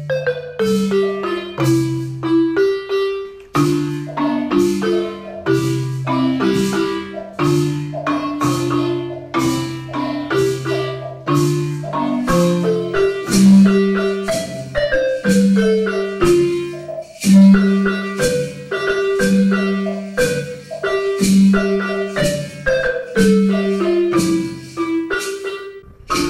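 Wooden marimba played with mallets: a melody over low bass notes that alternate back and forth in a steady, dance-like rhythm.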